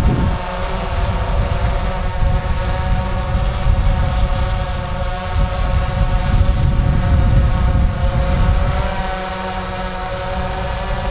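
DJI Phantom 3 quadcopter hovering, its propellers giving a steady, even multi-tone hum, with wind rumbling on the microphone underneath.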